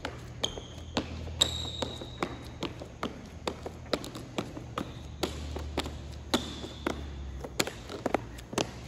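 Basketball sneakers stepping quickly through an agility ladder on a plastic sport-court floor: a run of sharp, irregular taps, two or three a second, with a few short high squeaks from the soles. A steady low hum runs underneath.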